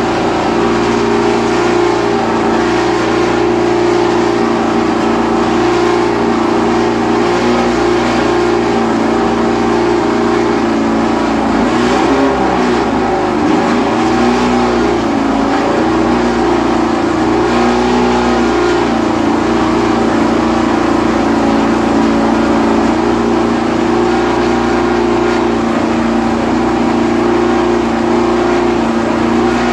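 Cosworth DFV V8 of a 1970s Formula 1 car running loudly and steadily in the pits, its revs wavering up and down for several seconds about midway before settling back to the same steady note.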